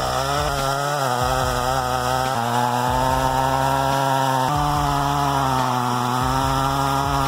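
Petrol chainsaw engine running at high revs while cutting, its pitch sagging and recovering slightly as the chain works through the wood.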